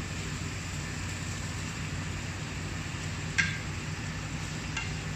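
Chicken pieces and diced vegetables sizzling in hot oil in a pot, a steady hiss. A utensil clinks sharply against the pot about three and a half seconds in, with a lighter clink near the end.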